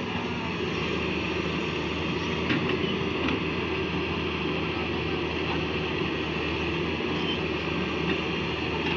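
Hyundai wheeled excavator's diesel engine running steadily under load as the bucket digs into soil and rocks, with a few short clanks of the bucket against stones.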